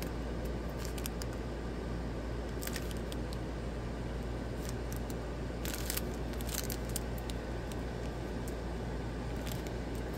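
Scattered crinkles and faint clicks of clear plastic bags of round resin diamond-painting drills being handled and turned, the drills shifting inside, with a denser cluster of crinkling about six seconds in. A steady low hum runs underneath.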